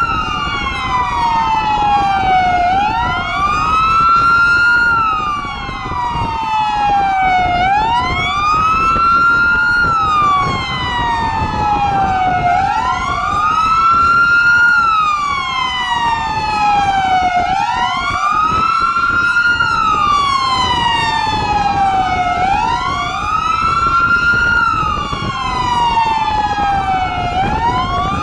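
Several police car sirens wailing at once, out of step with each other, each one gliding slowly up and down in pitch over a few seconds, over the road noise of the moving convoy.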